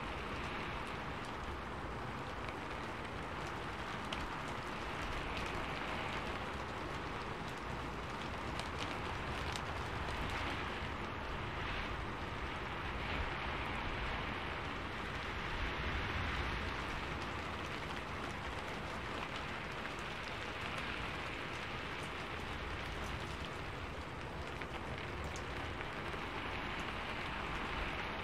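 Steady rain falling, an even hiss with faint scattered drop ticks, swelling slightly now and then.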